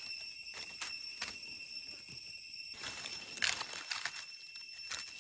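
Dry leaf litter crackling and rustling in short irregular bursts as a mushroom is cut from the forest floor with a knife and lifted out, the loudest crackle about three and a half seconds in. A steady high tone runs underneath.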